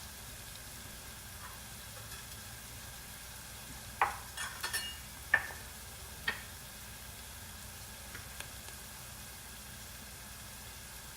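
Onion and garlic frying in oil in a non-stick pan on high heat, a steady sizzle. Between about four and six seconds in, a handful of sharp clicks and knocks of a utensil against the pan as it is stirred.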